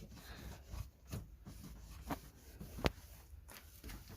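Faint rubbing of a cloth wiping soap residue off the side of a dishwasher door, with a few light clicks and knocks; the sharpest click comes about three seconds in.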